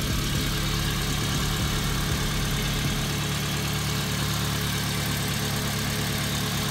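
Toyota Yaris petrol engine idling steadily under the open bonnet, running normally after an engine bay wash.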